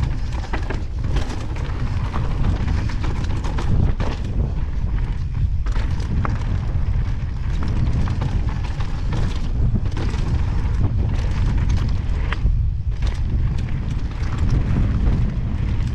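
Wind buffeting the camera's microphone with a heavy rumble, over the crunch of Evil Wreckoning mountain bike tyres on a loose rocky trail and frequent rattles and clatters of stones and the bike at speed.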